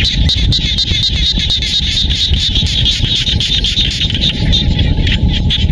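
A dense chorus of paddy-field frogs calling, a fast high-pitched pulsing that runs on without a break, over a steady low rumble.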